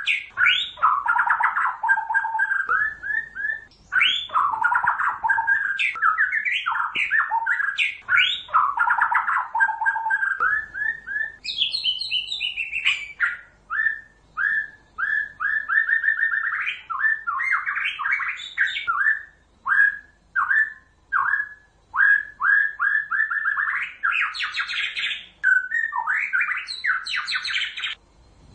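White-rumped shama (murai batu, Pasaman strain) singing a long, varied song: dense runs of whistled phrases, then fast series of repeated chattering notes broken by short pauses, with some higher, shriller notes about halfway through.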